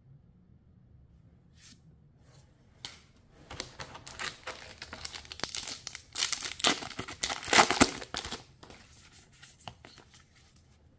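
The foil wrapper of a MetaZoo Native trading-card booster pack being torn open and crinkled by hand. It starts after a quiet second or so, is loudest in the middle and dies away near the end.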